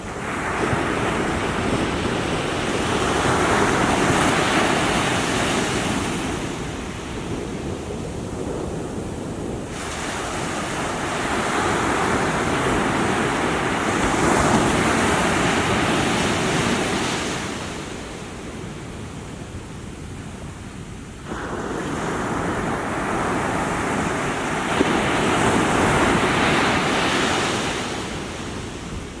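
Small waves washing onto the shore in three slow surges about ten seconds apart, each swelling and then fading.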